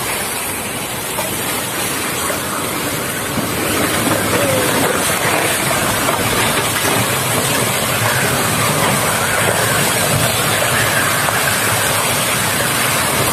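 Storm-force wind and driving rain, a loud steady rushing noise that grows louder about four seconds in.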